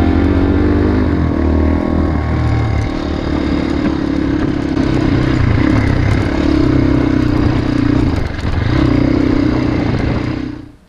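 Single-cylinder Crossfire 250 dirt bike engine running under way, its note dropping and coming back every second or two as the throttle is eased and reopened, with clatter of gravel under the tyres. The sound fades out shortly before the end.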